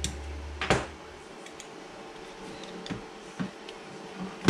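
Small metal carburetor parts and a screwdriver clicking and knocking against a steel workbench as they are handled and set down: a sharp clack under a second in, a few light ticks, and another sharp clack at the very end. A low hum stops a little under a second in.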